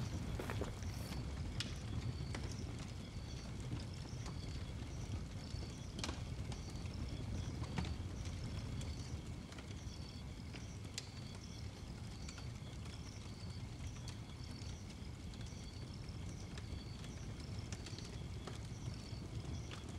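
Wood fire burning in a steel oil-drum fire barrel, with scattered crackles and pops over a low steady rumble.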